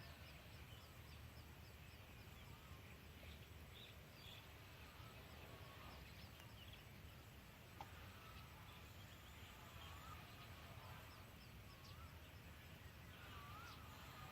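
Faint ambience with scattered soft bird chirps over a steady low background hum.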